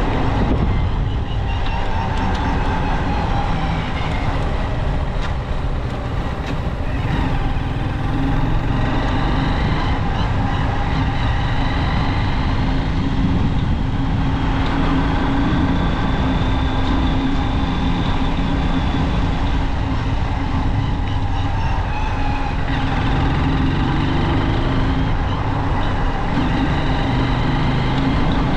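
Junak M12 motorcycle on the move, its engine note climbing and dropping back twice, under a steady low rush of wind and road noise.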